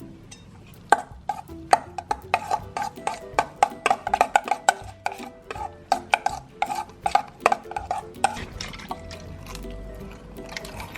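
A utensil stirring slime mixture in a container and clinking quickly and repeatedly against its side, several knocks a second with a short ring, as the baking soda activator is mixed into the glue. The clinking stops about eight seconds in and gives way to softer stirring.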